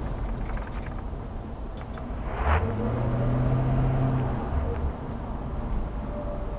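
City traffic noise with a steady low rumble of vehicles. About two and a half seconds in, a nearby vehicle engine's hum swells for about two seconds, then fades.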